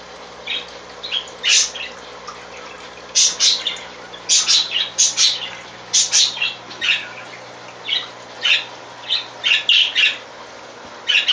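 Pet cage birds chirping and squawking: many short, sharp calls in irregular clusters, over a faint steady hum.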